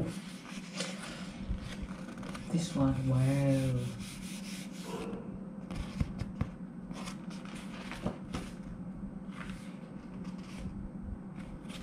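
Paper photobook pages being turned and rubbed in the hands, a run of short rustles and flicks. About three seconds in, a short wordless vocal sound is held for a moment.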